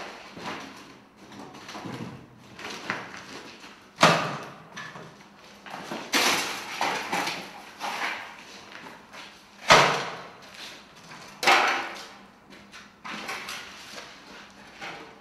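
Rubble and wooden debris being rummaged through and picked up by hand: loud knocks and clatters about four times, with smaller scrapes and rustles between.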